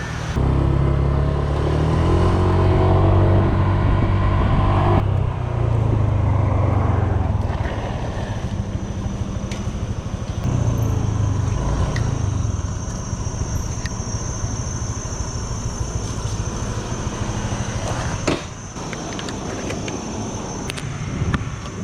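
Motor scooter engine running under way, climbing in pitch as it speeds up over the first few seconds, then holding a steadier note.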